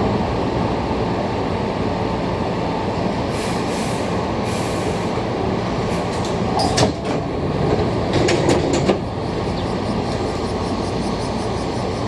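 Hankyu 6000 series electric train heard from the driving cab as it pulls up and stands at a station platform: a steady rumble, two short bursts of air hiss a few seconds in, then a cluster of sharp clicks and clunks about seven to nine seconds in.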